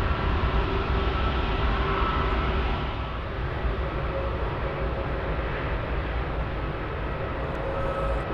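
Jet engines of an Airbus A340-600, its four Rolls-Royce Trent 500 turbofans, running: a steady rushing noise with a low rumble and a high engine whine. It drops a little in level about three seconds in.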